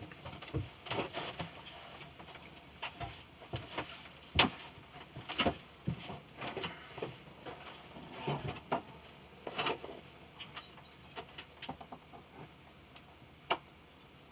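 Irregular light clicks and knocks of small hand tools and objects being picked up and set down on a workbench, with a few sharper taps among them.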